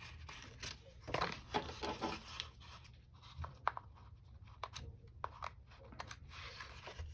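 Sticker peeled from its backing sheet and pressed onto a paper planner page: irregular paper rustles and crinkles with small scattered taps.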